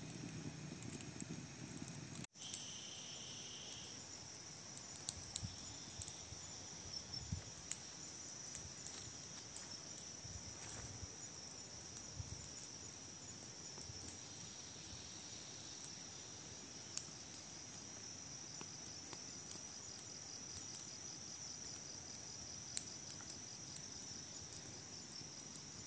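Insects chirring in a steady, high, continuous trill, with a second lower trill for a moment about two seconds in.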